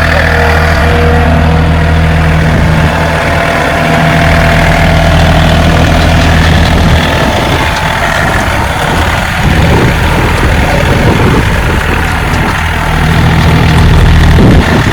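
John Deere 3025E compact tractor's three-cylinder diesel engine running steadily while its front loader carries a full bucket of dirt, with wind gusting on the microphone through the second half.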